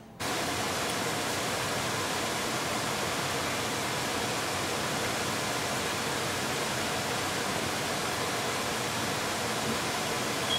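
Steady, even hiss like static that switches on abruptly just after the start and holds unchanged.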